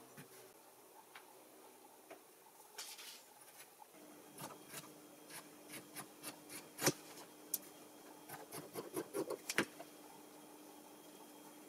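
Scissors cutting through fabric: a run of faint snips and clicks, about two a second, with the cloth rustling, the snips coming thicker near the end.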